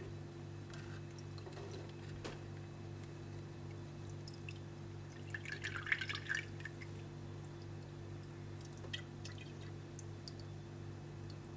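Water dripping and splashing, with a cluster of small splashes and clinks about five to six and a half seconds in, over a steady low hum.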